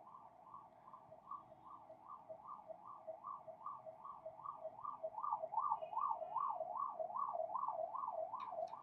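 Emergency-vehicle siren in a fast yelp, its pitch sweeping up and down about three times a second. It is fairly faint and slowly gets louder.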